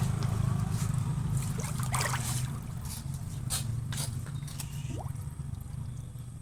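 Water trickling and splashing, a few sharp splashes about two, three and a half and four seconds in, over a steady low hum.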